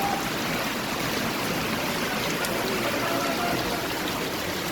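Steady rush of running rainwater.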